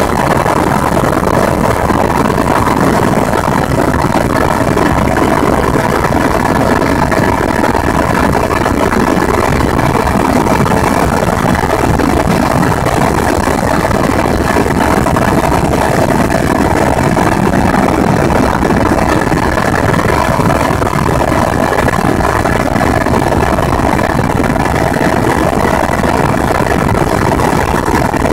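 Helicopter cabin noise in level flight: the engine and rotor drone steadily, with a faint steady whine laid over it.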